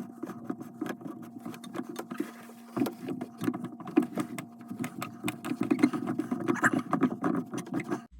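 A plastic well-water filter housing being turned and wiggled by hand onto its threaded cap, with many irregular plastic clicks, scrapes and rattles over a steady low hum.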